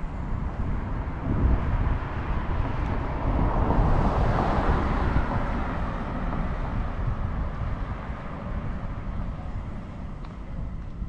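A vehicle passing on the street, its noise swelling to a peak about four seconds in and then fading away. Wind rumbles on the microphone underneath.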